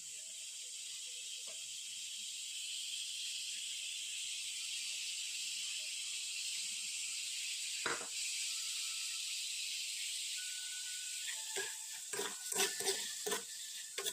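Chicken offal sizzling in a nonstick frying pan, a steady hiss. A single knock comes about eight seconds in, and near the end a metal spoon clatters against the pan several times as the food is stirred.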